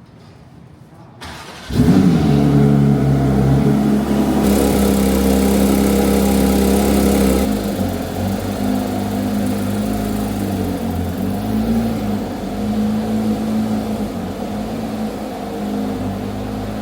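Porsche 911 GT3 RS (992) 4.0-litre flat-six starting: it catches suddenly with a brief rev flare and settles into a high, steady fast idle. About six seconds later it drops to a lower, steady idle.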